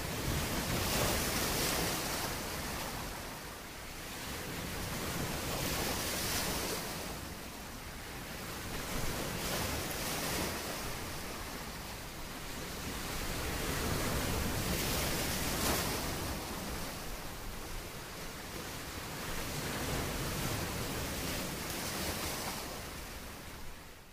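Small bay waves washing onto a sandy, rock-lined shore, a steady rush that swells and eases every four to five seconds, with wind buffeting the microphone.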